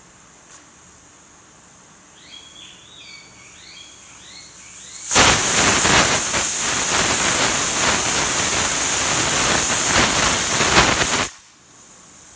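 Stovetop pressure cooker whistling: the weight lifts and steam rushes out in a loud, steady hiss for about six seconds, then cuts off suddenly. This is the whistle that signals the cooker has reached full pressure.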